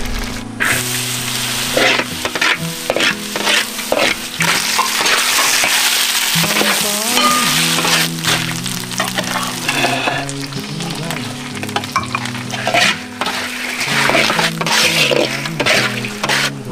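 Food frying in hot oil in a pan, a dense sizzle broken by frequent sharp scrapes and clinks of a spatula stirring, over background music.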